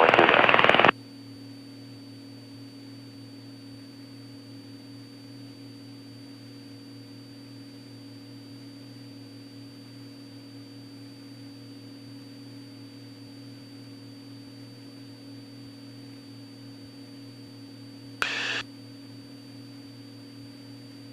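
Steady low hum of a Cessna 206 Stationair's six-cylinder engine and propeller in flight, heard faintly. A loud noisy sound cuts off abruptly about a second in, and a short burst of noise comes near the end.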